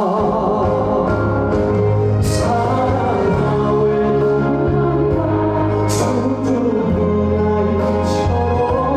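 Trot song performed live over a backing track with a steady bass line, with singing in places and a few sharp accents in the accompaniment.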